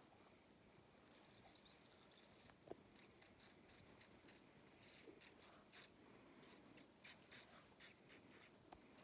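Soft, high scratchy rubbing close to the microphone: a puppy shifting against a knitted sweater. A hiss of about a second and a half comes first, then a run of short scratches about four a second that stops near the end.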